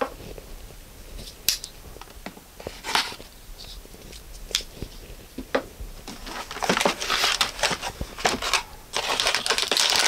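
A cardboard graphics-card box being opened by hand, with scattered scrapes and clicks of the flaps and lid. From about six and a half seconds in comes a steady crinkling of the metallic anti-static bag around the card.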